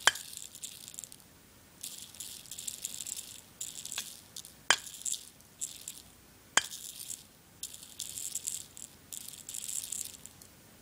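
Salt being shaken from a shaker onto a small speaker cone: repeated short bursts of gritty, hissing rattle, with four sharp clicks among them.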